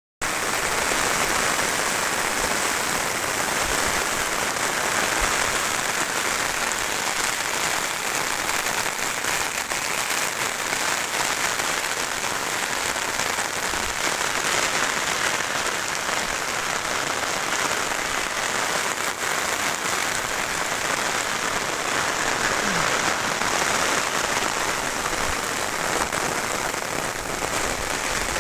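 Rain falling steadily: an even, unbroken hiss of drops.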